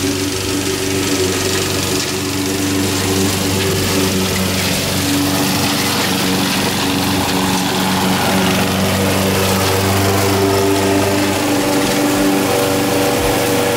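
Honda HR194 push lawn mower's four-stroke engine running steadily as it cuts grass, holding an even pitch.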